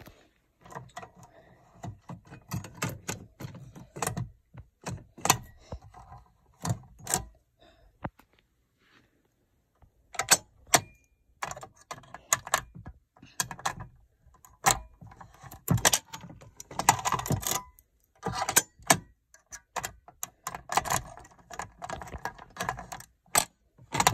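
Keys jangling and clicking as a small key is worked into the reset lock of a red fire alarm pull station, with scattered knocks and rattles from handling it. The clicks pause for about two seconds about a third of the way through.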